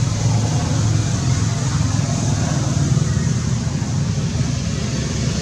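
Steady low rumble of road traffic with nothing standing out, fairly loud.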